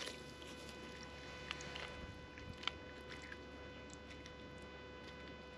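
Faint handling noises, a few soft clicks and rustles, as a caught crappie is handled over a clear plastic bag, over a steady faint hum.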